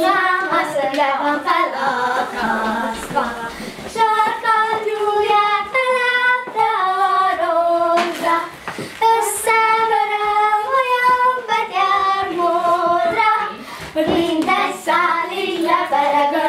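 Children singing a song, with long held notes through the middle and a brief knock about eight seconds in.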